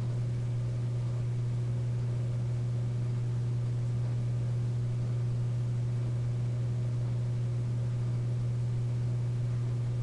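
A steady low hum with a constant hiss over it, unchanging throughout, like electrical hum on a broadcast audio feed.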